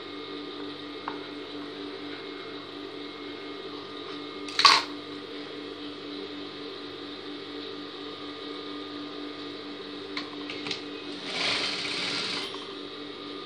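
Sewing machine motor humming steadily, with one sharp click a little over four seconds in and a short, louder burst of sewing about a second before the end.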